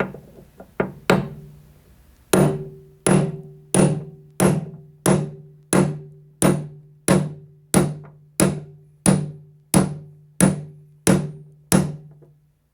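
Hammer blows on a socket driving a mower-deck spindle shaft into its new bearing. A few scattered hits, then a steady run of about fifteen blows, roughly three every two seconds, each leaving a ringing metallic note.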